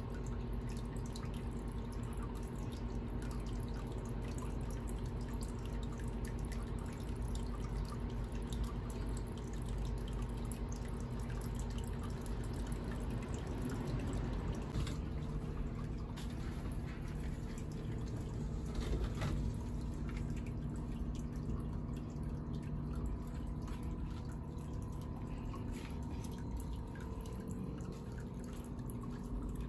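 Small solar fountain in a medaka biotope tub, water trickling and dripping steadily back into the tub as a continuous patter of fine drips, with a faint steady hum underneath.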